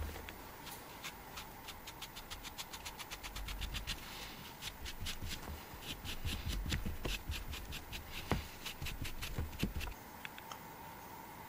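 A cloth rubbed in quick short strokes over a carved stone flower coated in wet paint, wiping the paint back off the raised petals: a fast run of scratchy rubbing ticks with dull handling bumps underneath, stopping about ten seconds in.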